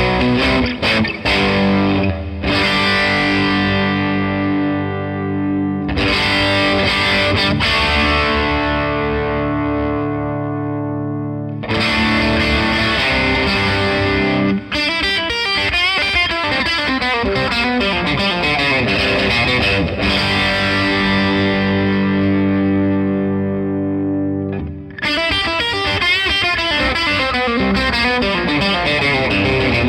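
Electric guitar played through a Rocknroll Amps JK15, a 15-watt two-EL84 valve amp, in its natural overdrive mode with reverb mixed in: crunchy, distorted chords struck every few seconds and left to ring out.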